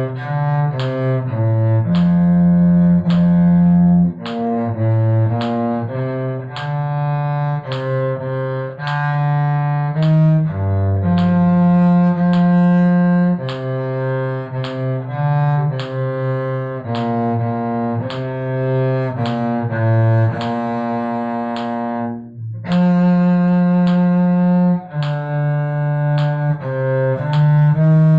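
Bowed string instrument in the cello range playing a line of sustained and shorter notes, some held about two seconds, with a brief break about twenty-two seconds in.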